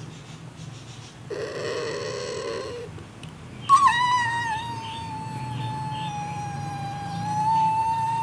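Small fluffy dog whining: a short rough whine, then from about four seconds in a long, high, steady whine that starts loud and wavers slightly in pitch.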